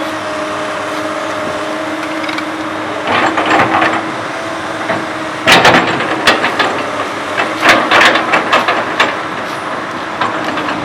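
Komatsu PC200 hydraulic excavator's diesel engine running steadily, then about halfway through a run of loud knocks and clatters as the bucket digs and scrapes through earth.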